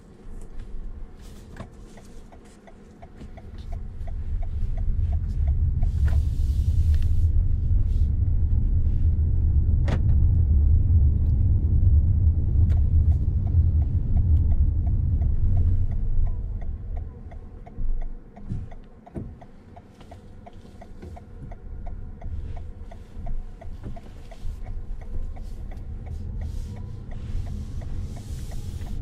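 Low rumble of a new Toyota Harrier hybrid driving, heard inside its cabin. The rumble swells a few seconds in and eases off a little past halfway, with a couple of knocks soon after.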